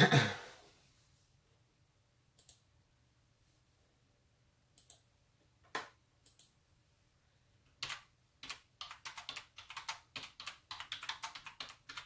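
Typing on a keyboard: a few scattered key clicks, then a quick run of tapping from about eight seconds in. A short, loud noise comes right at the start.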